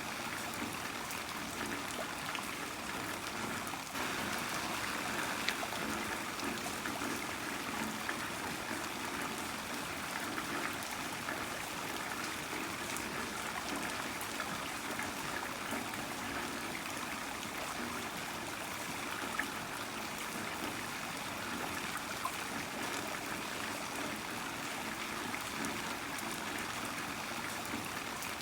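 Heavy rain falling steadily: a dense, even hiss of rainfall with scattered individual drop ticks, a little louder from about four seconds in.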